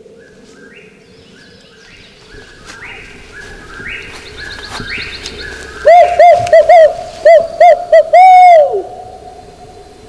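A series of about eight loud turkey yelps, the last one drawn out and falling in pitch. Before them comes a few seconds of quieter bird song in thin whistled notes.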